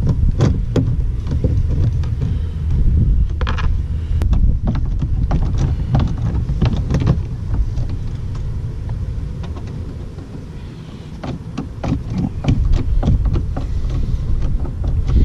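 Hand tool backing a screw out of a pickup's plastic door trim panel: irregular clicks and scrapes of the bit and panel, over a steady low rumble.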